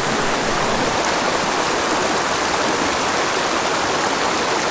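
Small mountain creek rushing steadily over rocks in a shallow riffle.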